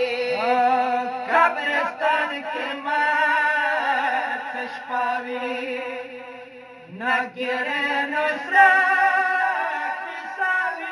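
Male voices chanting a Pashto noha, a Shia lament, in long wavering notes, with a short break about seven seconds in.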